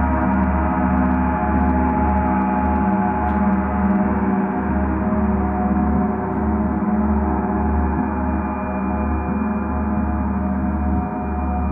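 A large metal sound-healing instrument, gong or singing bowl, held in one long ringing tone full of overtones, its low hum throbbing slowly and evenly.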